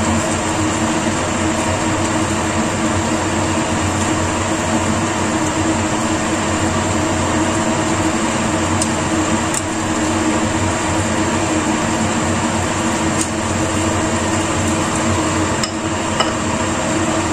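A steady mechanical hum with a rushing noise, over which chopsticks tap lightly a few times against a clay pot as a vegetable stew is stirred. Near the end the pot's lid is set on with a couple of small clicks.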